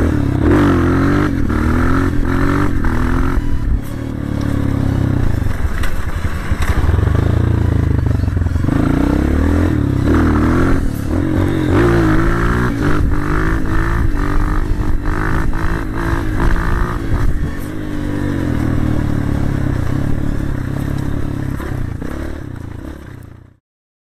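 Dirt bike engine running under way, its pitch rising and falling over and over as the throttle opens and eases off, with the bike rattling and clattering over a rough track. It cuts off abruptly near the end.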